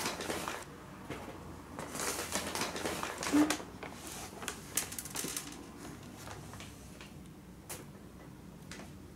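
Dry cat kibble clicking and crackling against a hard tabletop as a cat handles it, in uneven bursts of small clicks, busiest in the first few seconds and thinning to scattered ticks.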